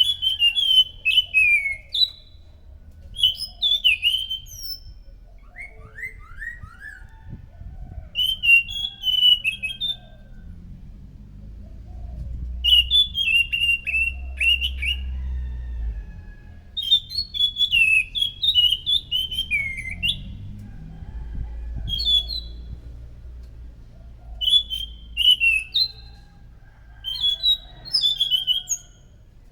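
Anis macan thrush singing: short phrases of quick, sharp, chattering notes, each about a second long, repeated with pauses of a second or two. About six seconds in there is a brief run of four falling whistles, over a low background rumble.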